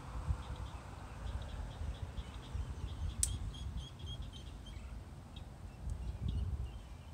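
Ducklings peeping, many short high peeps repeated in quick runs, over a low rumble on the microphone, with one sharp click about three seconds in.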